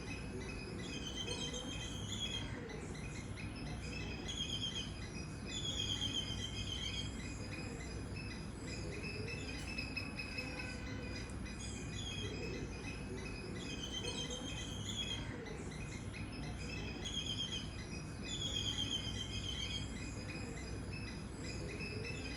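Birds singing a short chirping phrase again and again, about every four seconds, over a steady high buzz of insects and a low background hiss.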